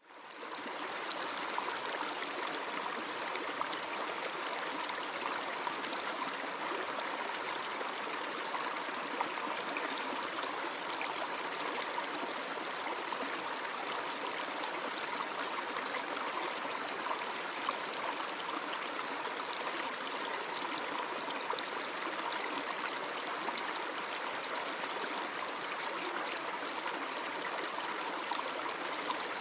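A stream of water running steadily, an even rush with small splashy peaks here and there; it fades in at the very start.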